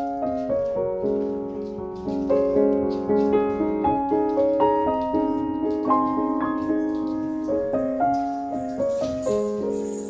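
Background piano music: a steady, unhurried run of single notes and chords, each note struck and then fading.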